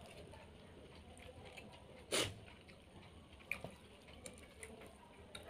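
Close-up eating sounds of someone eating fried fish and rice by hand: soft chewing and small wet mouth clicks, with one brief louder burst about two seconds in.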